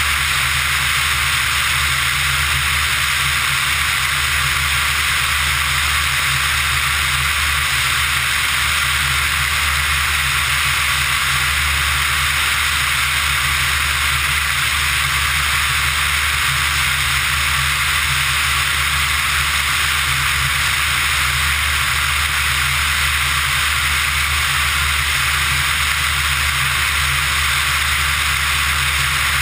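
Steady rush of airflow over a camera mounted outside a Pipistrel Virus ultralight in flight, with the low, even drone of its engine and propeller underneath.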